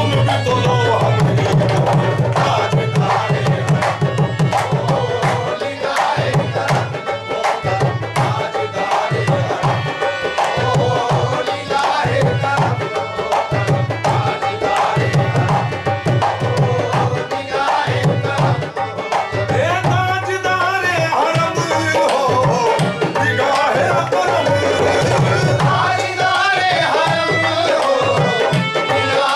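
Qawwali music: dholak drums playing a fast, driving rhythm under sustained harmonium tones, with singing voices over them, clearest in the second half.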